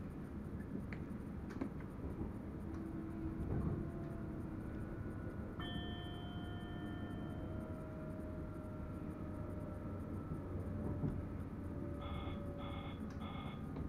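Cab of an NS Sprinter Lighttrain electric multiple unit under way: a steady rumble from running gear and track, with an electric drive whine that slowly falls in pitch as the train slows. Near the end a cab warning tone sounds three short beeps.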